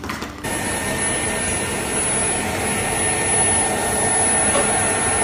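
Makita stick vacuum cleaner running steadily with a constant high-pitched whine over its motor noise, starting about half a second in.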